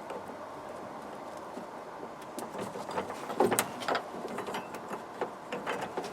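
Irregular small clicks and knocks, starting about two seconds in, as a new rear door handle and its plastic locking ring are fitted into a van's steel door.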